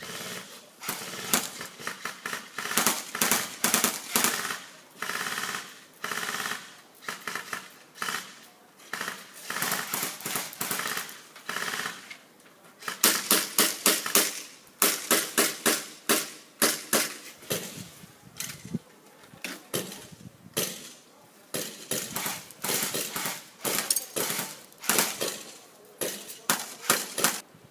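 Airsoft guns firing in repeated short rapid bursts of shots, with brief pauses between the bursts.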